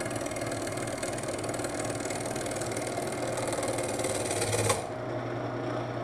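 A wood lathe turning a laminated banjo rim blank while a steel cutting bit cuts into its rough outer surface: steady cutting noise over the lathe motor's hum. The cutting noise stops suddenly about three-quarters of the way through, leaving the motor running.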